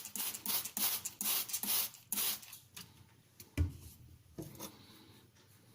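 Quick, even scraping strokes across a 500-grit sintered aluminium oxide whetstone, about two to three a second, dying away about two seconds in. A single knock follows about halfway through, then only faint room sound.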